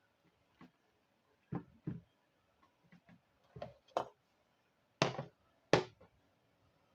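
Kitchen tools being handled on a countertop while getting ready to cut an onion: a series of irregular knocks and clatters, the two loudest about five and six seconds in.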